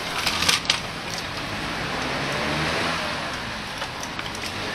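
A car engine passing close by, its pitch rising and falling over steady road noise, with a few sharp clicks in the first second.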